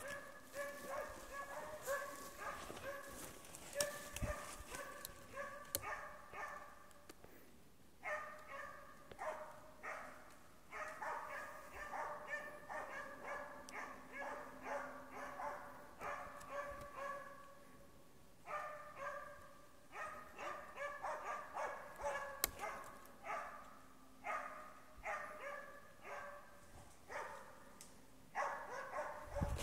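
Spitz hunting dog barking persistently in fast runs of barks, several a second, broken by short pauses and fairly faint: steady bay barking at quarry, here a badger.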